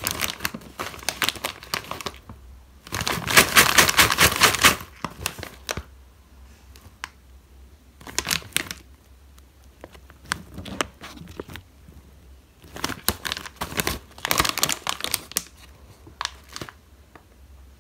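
Foil-lined plastic snack bag crinkling in bursts as it is opened and handled, loudest a few seconds in and again past the middle. Between the bursts come quieter rustles and light clicks as fingers dig among the caramel-coated popcorn inside.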